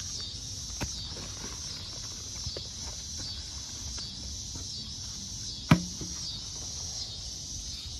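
A steady, high insect chorus swelling and fading in a regular pulse, with one sharp knock about six seconds in as the root ball of a container-grown elephant ear comes free of its upturned plastic pot. A fainter click comes about a second in.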